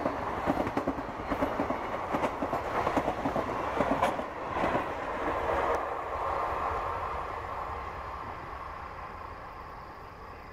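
Blue passenger coaches of an Indian Railways express rolling past, their wheels clacking over the rail joints. About halfway through the clacking thins out as the last coach draws away, and the rolling noise fades steadily.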